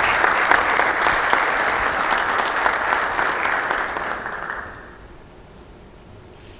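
Audience applauding. The clapping dies away about five seconds in.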